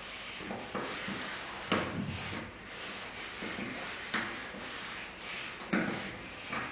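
Fabric woven with small heavy metal plates being pushed and gathered into pleats by hand: a continuous rustling scrape, broken about five times by sharper clacks as the plates slide and knock against each other.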